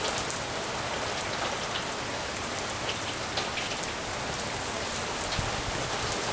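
Rain falling steadily: an even hiss with many sharp drop hits scattered through it.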